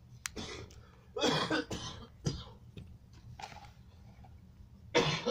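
A person coughing several times in short, separate bursts, with one sharp click about a quarter second in.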